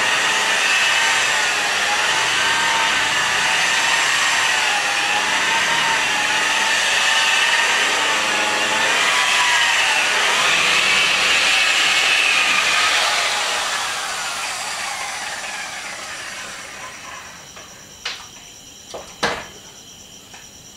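Electric car polisher running with a compound-loaded foam pad on fresh paint, a steady whine whose pitch wavers. After about 13 seconds it is switched off and winds down, falling in pitch, and a few sharp knocks follow near the end.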